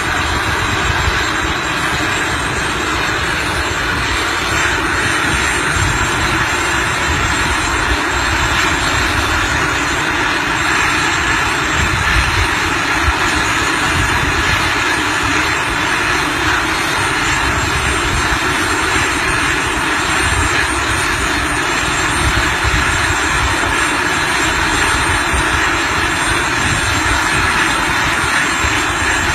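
Steady engine noise of an aircraft in flight, unbroken throughout, with an unsteady low rumble beneath it.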